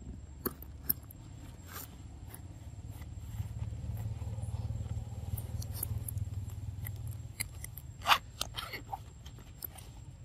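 A macaque chewing food: scattered small crisp clicks and crunches, most of them in a cluster about eight seconds in, over a low steady rumble.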